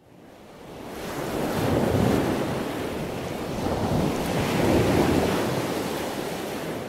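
A rushing, surf-like noise that fades in over the first couple of seconds, swells twice and begins to fade near the end, with no tune or voice in it.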